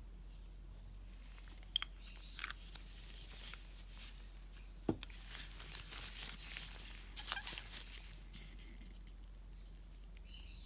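Faint handling sounds: a few small clicks and a tap, then soft rustling as gloved fingers fold and press soft polymer clay.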